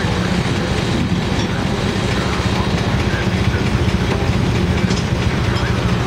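Steam traction engine running steadily under load, driving a sawmill through a long flat belt from its flywheel: a loud, even, rapid beat.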